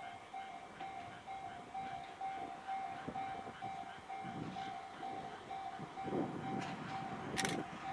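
Japanese railway level-crossing alarm ringing its electronic bell, about three dings a second, while a low-floor tram-train approaches. The train's rumble grows over the second half, with a short sharp noise near the end.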